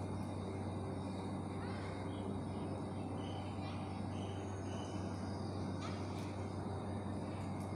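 A steady low hum with a few faint, short bird calls over it.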